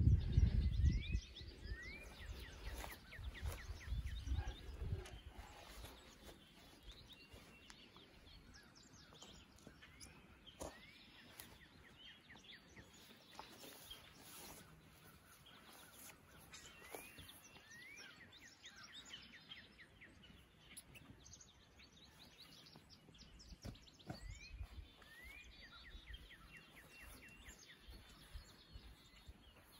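Songbirds singing, one repeating a phrase of quick, short rising notes every several seconds. Low thumps and rumble come in the first five seconds and again briefly later on.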